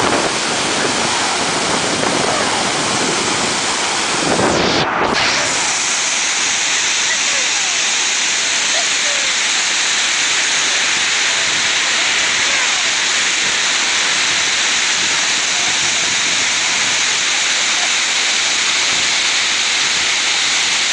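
Waterfall's water pouring and splashing in a steady, loud rush, swelling briefly about five seconds in.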